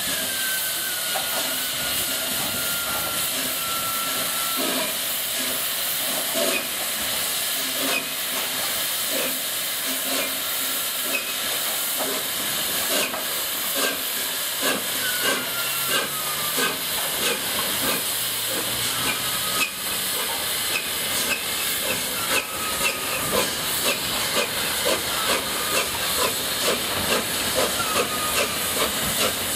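LNER A4 Pacific steam locomotive 'Bittern' getting under way: a steady hiss of steam, with exhaust beats coming in about halfway through and quickening as the engine gathers speed.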